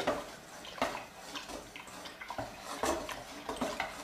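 Wooden spoon stirring warm goat's milk in a metal pot, as rennet is being mixed in. The spoon knocks and scrapes against the pot at irregular moments over the sound of the stirred milk.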